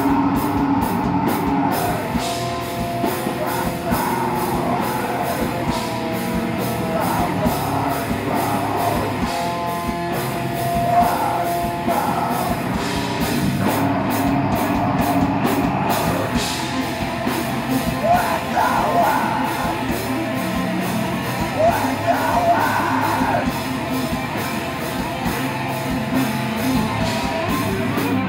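Heavy metal band playing live: electric guitar, bass guitar and drum kit, with screamed vocals over the top.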